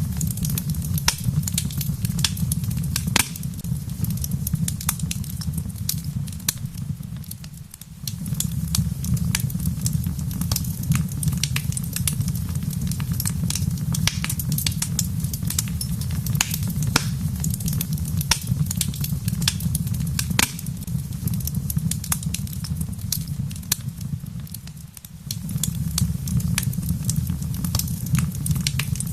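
Wood fire in a fireplace crackling, with many irregular sharp pops over a steady low rumble, and rain pattering outside. The rumble dips briefly twice, about eight seconds in and near twenty-five seconds in.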